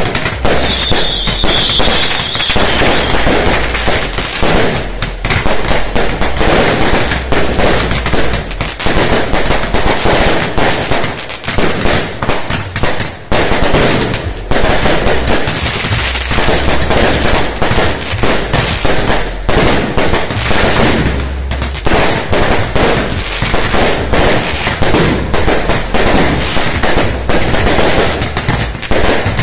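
Firecrackers and fireworks going off in a dense, continuous barrage of sharp cracks and bangs. A high whistle sounds for about two seconds near the start.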